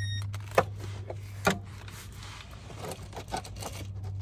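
A wrench and 13 mm socket worked onto the oil drain plug: two sharp metal clicks and light scraping and ticking, over a steady low hum that weakens about halfway through.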